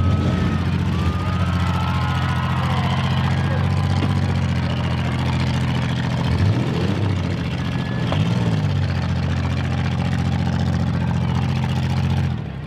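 Several demolition-derby cars' engines running and revving together, with the engine note rising and falling about two-thirds of the way through and dipping briefly near the end.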